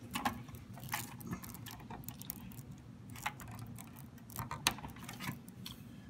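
Irregular light clicks and rattles of plastic cable connectors and sleeved power cables being handled as a PCIe cable is plugged into the modular sockets of a Corsair RM850x power supply.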